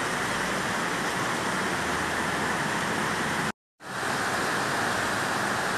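Steady rushing roar of a torrential downpour and a flooded, swollen stream. It cuts out completely for a moment about two thirds of the way through, then carries on.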